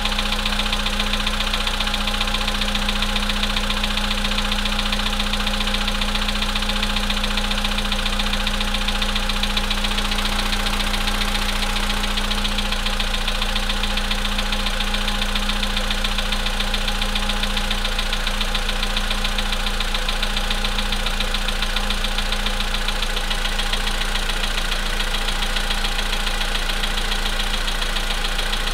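Volkswagen Polo Sedan engine idling cold with a steady, even knocking in time with the engine: knocks that the owner says are growing worse.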